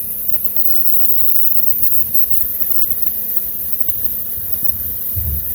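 A steady mechanical hum with a constant hiss.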